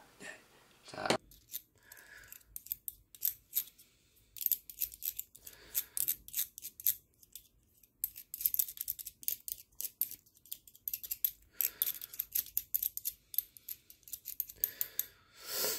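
Small, uneven metallic clicks and light scrapes from the metal gears and parts of an electric airsoft gun's gearbox being handled.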